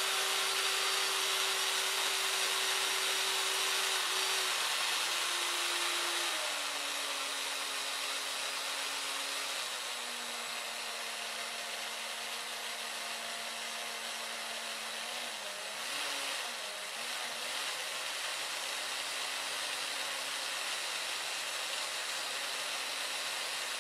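Cordless drill running continuously as it drills out a broken bolt stuck in a moped's center stand mount. The motor whine steps lower a few times in the first ten seconds and wavers briefly past the middle.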